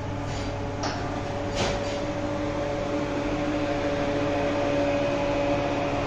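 Barn machinery running with a steady hum that holds a few low, level tones, with two short sharp knocks in the first two seconds.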